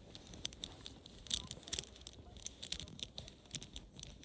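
Plastic Tangle fidget toy being twisted by hand, its curved segments clicking and rattling irregularly at the joints.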